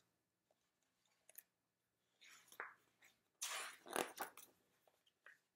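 Paper pages of a picture book being handled and turned, with a few faint clicks and soft rustles, then a louder rustle as the page turns about three and a half seconds in.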